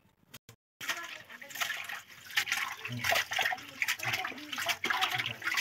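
Water sloshing and splashing as leafy greens are washed by hand in a pot of water, beginning about a second in.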